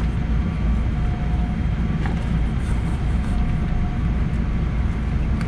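Cabin noise of a Boeing 777-300 taxiing slowly: a steady low rumble from the jet engines at taxi power and the aircraft rolling, with a few faint clicks from the cabin.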